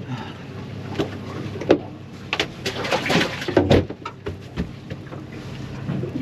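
Fishing boat's engine running with a steady low hum under a string of sharp knocks and clatters, busiest around the middle, with a few short high cries among them.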